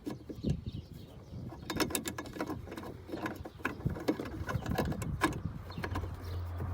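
Irregular plastic clicks and knocks of an H7 LED headlight bulb being handled, twisted and seated in the headlight housing, with a quick run of sharp clicks about two seconds in. A steady low hum comes in near the end.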